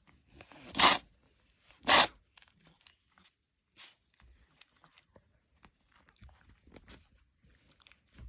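A cat sneezing twice, about a second apart, part of a bout of repeated sneezing, followed by a few faint small clicks.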